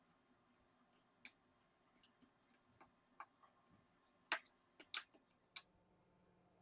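A few faint, irregular clicks and light taps over near silence, with the loudest three coming in quick succession a little over four seconds in.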